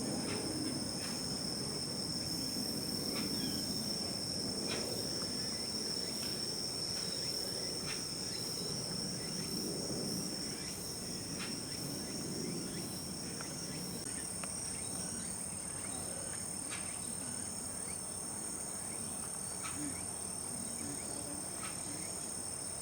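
Insects trilling steadily in two high, unbroken tones, over a low background murmur with a few faint ticks.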